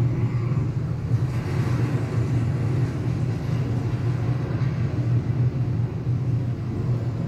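Deep, steady rumbling from an interactive earthquake and tsunami exhibit's sound effects, building up just before and holding at an even level throughout.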